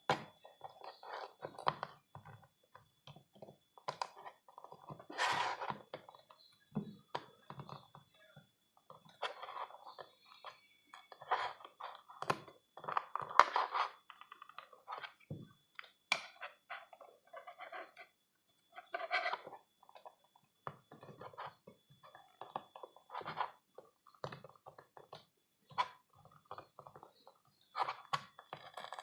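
Hands handling an action figure and its plastic packaging: irregular rustling, crinkling and light clicks, coming in short uneven bursts with brief pauses between.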